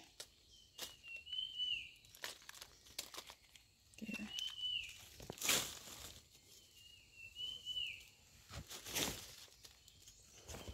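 Dry leaf litter rustling and crackling as mushrooms are picked off a tree trunk, loudest about five and a half and nine seconds in. Meanwhile a bird repeats a short, high, rising-and-falling call every three to four seconds.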